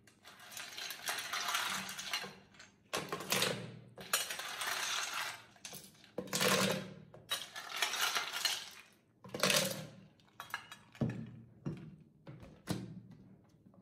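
Ice cubes clinking and rattling as a metal scoop digs them out of a glass bowl and tips them into a plastic blender jar, in a series of irregular bursts, with a few sharp clicks near the end.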